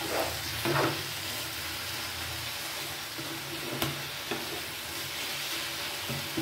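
Spatula stirring and scraping a mash of boiled raw jackfruit and vegetables in a non-stick frying pan, over a steady sizzle as the mash is dried out on the heat. The louder scrapes come in the first second, with a few short scrapes and a sharp click later.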